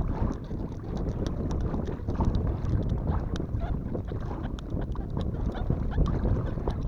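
Strong wind buffeting the microphone as a steady low rumble, with scattered light clicks and knocks.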